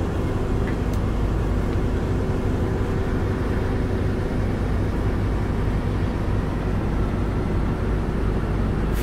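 Semi truck's diesel engine idling steadily, heard from inside the cab. Right at the end comes a short sharp hiss, the truck's "sneeze": the air dryer purging as the air brake system reaches governor cut-out pressure.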